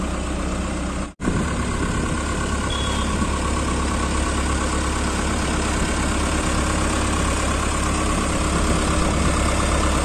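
Modified Farmtrac 6055 tractor's three-cylinder diesel engine running steadily at low revs as the tractor rolls slowly, with a momentary break in the sound about a second in.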